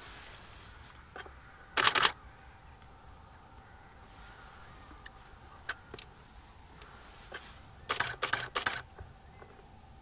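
Camera shutter firing: a short rapid burst about two seconds in, a few single frames around the middle, and a longer high-speed burst near the end.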